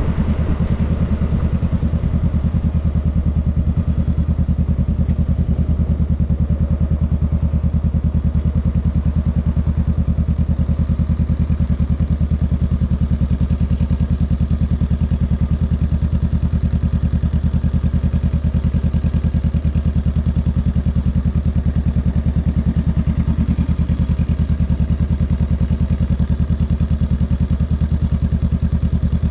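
Honda Rebel 500's parallel-twin engine running steadily at low speed, heard from the saddle, with no big rise or fall in revs. The bike comes to a standstill in traffic near the end.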